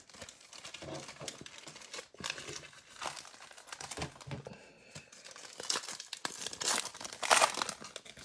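Foil trading-card packs crinkling as they are handled and stacked, with irregular crackles, then a pack wrapper crackling louder as it is torn open near the end.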